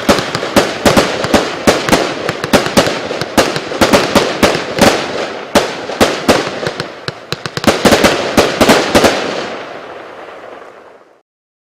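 A 100-shot, 0.8-inch consumer fireworks cake firing a rapid barrage, about three to four sharp bangs a second over a continuous dense noise. The shots stop about nine seconds in, and the noise fades away over the next two seconds.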